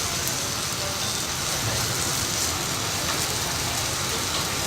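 Steady sizzling of dosa batter cooking on a hot griddle, with a low hum underneath.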